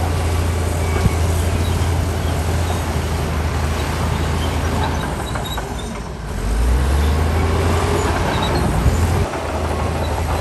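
Heavy diesel engine of earthmoving machinery running steadily under work, its note dropping and growing louder about six seconds in, then settling back near the end, with a couple of short knocks.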